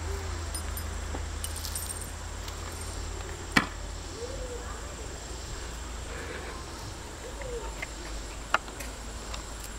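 A Doberman biting and gnawing a rubber basketball: faint rubbery squeaks and rubbing, with two sharp clicks, about a third of the way in and near the end, over a low steady rumble.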